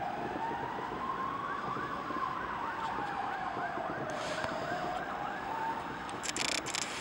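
Fire engine sirens on an alarm run: a slow wail rising and falling over a few seconds, with a second siren's fast warble, about four cycles a second, sounding over it in the middle.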